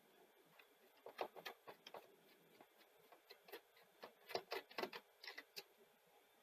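Faint, scattered clicks and small scrapes of a screwdriver undoing a small screw in a video recorder's tape deck mechanism, in two short clusters.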